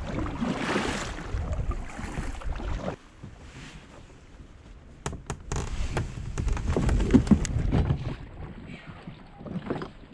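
Kayak paddle strokes splashing in the river, with low rumble of wind on the microphone; a quieter spell about three seconds in, then a few sharp knocks and more splashing as the kayak comes up against the bank.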